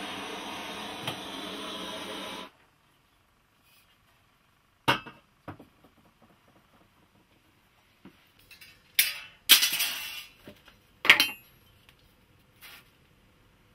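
Handheld gas blowtorch hissing steadily on a brass tube joint, then shutting off about two and a half seconds in. Several sharp metallic clinks and clatters of metal pieces being handled follow, loudest a little past the middle.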